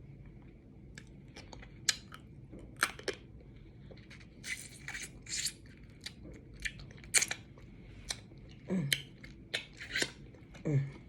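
Crab legs being cracked and eaten: scattered sharp clicks and cracks of shell, with a couple of short murmurs near the end.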